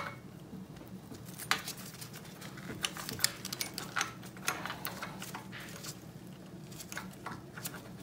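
Scattered light clicks and taps of metal carburettor parts being handled as a throttle slide and needle are worked down into an Amal carburettor body, over a low steady hum.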